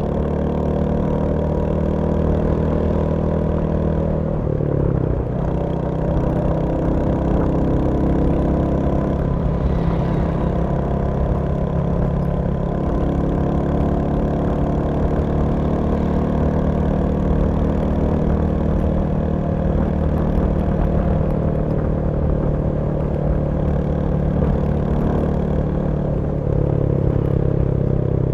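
Royal Enfield Hunter 350's single-cylinder engine running steadily on the move, its pitch changing briefly about five seconds in and again near the end.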